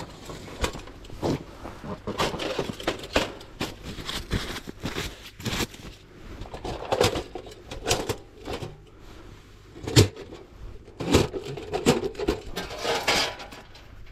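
Camp gear being handled: irregular knocks, clinks and rustling, like cookware and utensils being set out and moved about.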